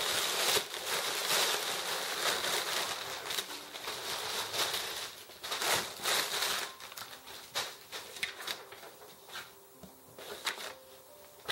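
Plastic air-cushion packing film crinkling and rustling as it is handled and pulled aside in a cardboard box. It is dense for the first six seconds or so, then thins to scattered crackles.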